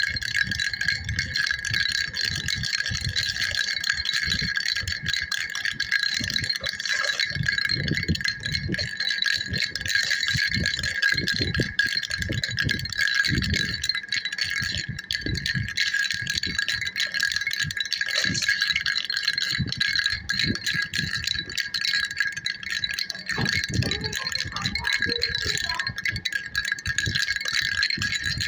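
A baby's rattle shaken continuously: a dense, even stream of little rattling strokes with a steady chiming ring over it.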